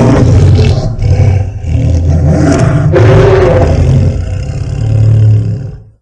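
Custom Indominus rex roar sound effect: one long, loud, deep creature roar, briefly easing about a second and a half in and again about three seconds in, then dying away near the end.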